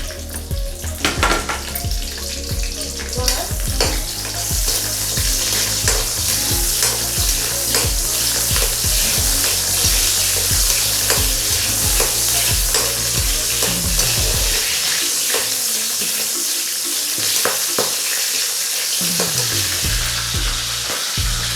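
Green chillies frying in hot oil in a heavy kadai, a steady sizzle that grows louder about four seconds in. A spatula stirs and scrapes against the pan with scattered clicks.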